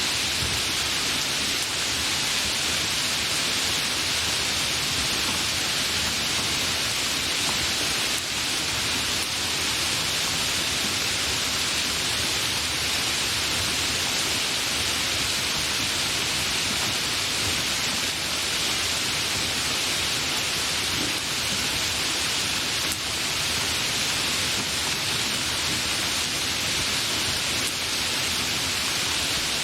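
Light rain falling in a steady, even hiss.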